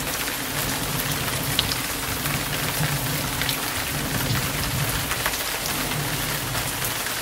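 Rain falling steadily on wet paving, with scattered close drop hits ticking through it.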